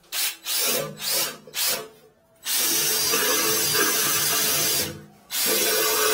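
A power-driven flexible-shaft drain cleaner spinning its cable inside a toilet drain pipe to clear a blockage. It runs in four short bursts, then steadily for about two seconds, stops briefly, and starts again near the end.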